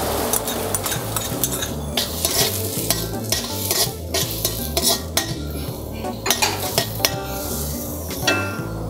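Metal utensil scraping and clinking against a wok in quick, irregular strokes as diced onions and crushed garlic are stirred in sizzling oil.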